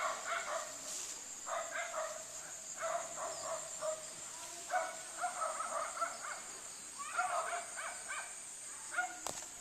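Rural paddy-field ambience: a steady high-pitched insect drone, with clusters of short animal calls every second or two. The drone stops shortly before a sharp click near the end.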